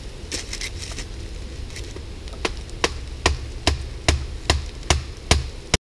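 A tent stake being driven into the ground with a thick wooden stick used as a mallet: eight sharp, evenly spaced knocks, about two and a half a second, after some light rustling in dry leaf litter. The sound cuts off suddenly near the end.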